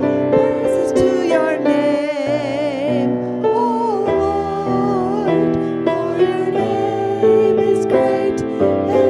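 Hymn singing with keyboard accompaniment: a lead voice holds notes with a wavering vibrato over sustained chords.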